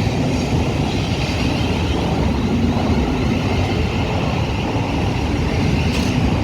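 Thameslink Class 700 electric multiple-unit train running past, a steady loud rumble with a faint hum.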